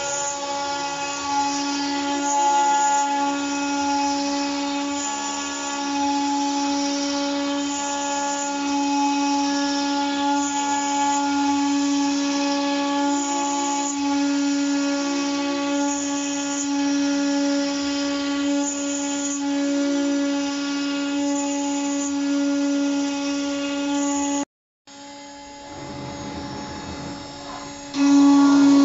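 CNC router spindle running at high speed with a steady whine, its bit plunging into the board about every two seconds, each plunge adding a short rush of cutting noise. Near the end the sound cuts out for a moment, comes back quieter, then returns loud.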